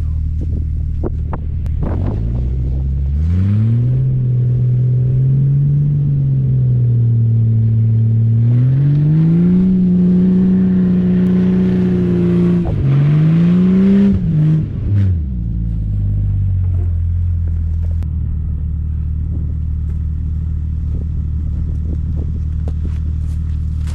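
Vehicle engine idling, then revving up under load about two seconds in and holding, climbing higher, dropping, giving one more short rev, and settling back to idle about fifteen seconds in.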